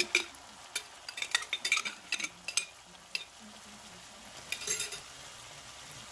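Ground pork and vegetables sizzling in a frying pan as a glass jar of spaghetti sauce is emptied into it, with a run of light clicks and knocks over the first couple of seconds and a short cluster again near the end.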